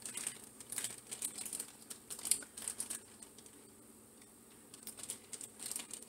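Small plastic bag crinkling on and off as tomato slices are taken out of it by hand, with a quieter pause in the middle.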